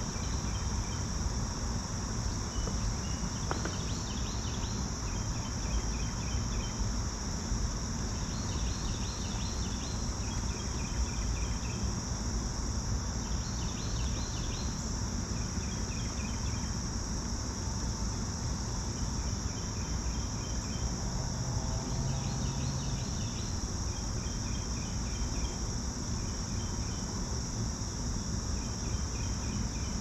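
Late-summer insect chorus of crickets: a steady high trill, with shorter pulsed calls repeating in groups every few seconds, over a constant low rumble.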